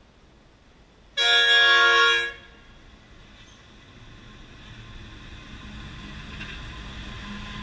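NR class diesel-electric locomotive sounding its multi-tone horn in one blast of about a second, just over a second in. It is followed by the steadily rising sound of the locomotive's engine and wheels as it draws alongside and passes.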